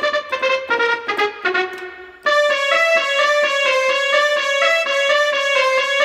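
A Yamaha PSR-F50 portable keyboard playing a bus-horn melody as a quick run of short notes. A little over two seconds in, the sound switches abruptly to a fuller, sustained tone that steps between a few notes.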